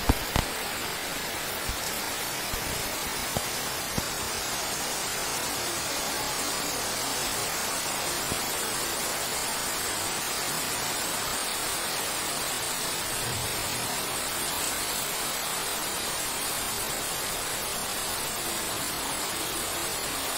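Steady heavy rain falling on leaves and flooded ground, an even hiss, with a few sharp taps in the first four seconds.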